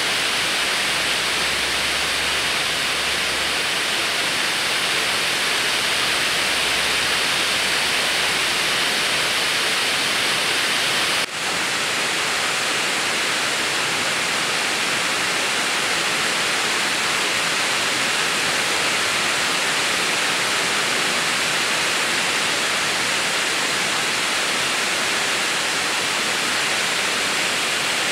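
Steady, even hiss with no distinct sounds in it. It dips briefly about eleven seconds in.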